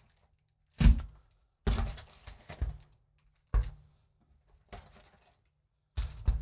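Foil Magic: The Gathering booster packs being handled and set down in stacks on a table: about five separate soft thumps, each with a short rustle of the wrappers.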